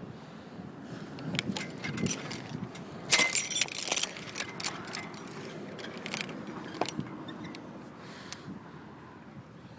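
Footsteps crunching and rustling on wood-chip mulch, with a burst of metallic jingling about three seconds in.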